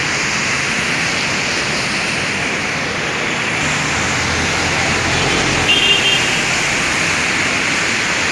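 Heavy rain pouring onto a flooded street while traffic drives through, tyres hissing on the standing water. A vehicle passes close about halfway through, and a short horn beep sounds about six seconds in.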